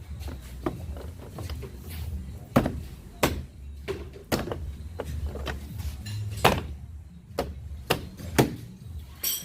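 The 2017 Chevrolet Impala's inner door panel is being pushed and struck into place against the door, its retaining clips snapping home. The result is a string of sharp knocks and thuds at irregular intervals, several of them loud.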